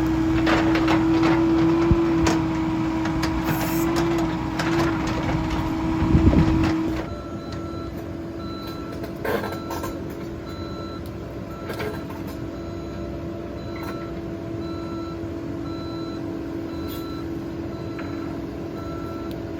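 Excavator engine running with a steady hum and occasional knocks. About seven seconds in, the sound drops off and its travel alarm beeps steadily, a little more than once a second, over the continuing engine hum.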